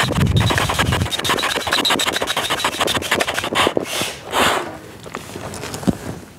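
Foot bellows pump inflating an air chamber of an inflatable boat: a dense rubbing and crackling of the pump being worked for about three and a half seconds, then a short rush of air about four seconds in, quieter after.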